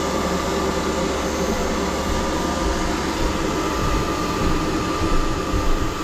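12-volt DC marine air conditioners running on a test bench: the steady hum of the compressor and blower fan, with a thin steady whine over it.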